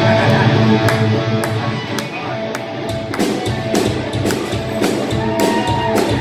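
Live rock band playing an instrumental break, with drums keeping a steady beat under the sustained instruments.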